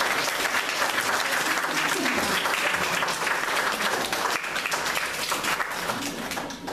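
Audience applauding, the clapping thinning out and dying down near the end.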